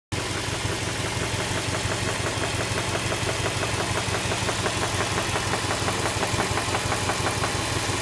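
Subaru EJ208 twin-turbo flat-four engine running steadily with a rapid, regular knock ticking over the engine note: the engine knock the car is being checked for.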